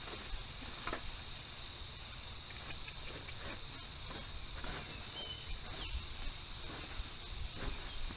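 Outdoor field ambience: a steady high-pitched insect drone over a low rumble, with a few faint rustles and taps.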